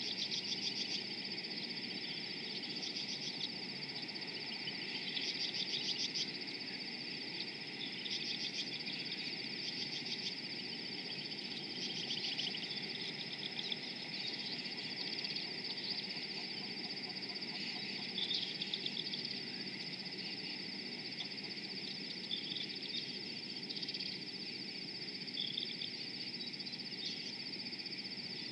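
Outdoor animal chorus: a steady high-pitched drone throughout, with short, rapid trilled calls repeating every second or two, densest in the first ten seconds.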